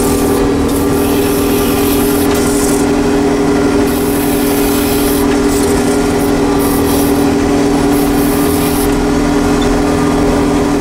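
Crop sprayer's engine and drive running steadily under load, heard inside the cab while it drives along the field: a constant drone with a strong steady hum.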